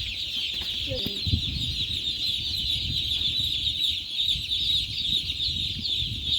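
A large flock of farmed poultry calling all at once: a dense, unbroken chorus of many short, high peeps, with an uneven low rumble underneath.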